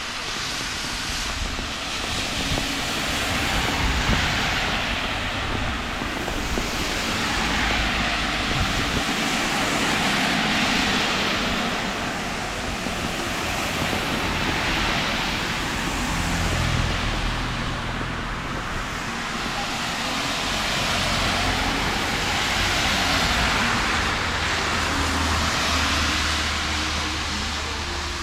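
Heavy rain falling on a city street, with cars passing on the wet road: their tyre hiss swells and fades every few seconds. A low engine hum joins in during the second half.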